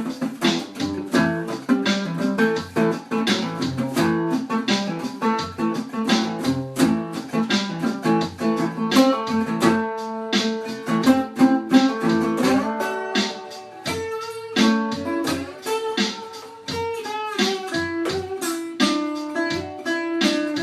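Instrumental music led by plucked guitar, a quick run of picked notes over lower tones.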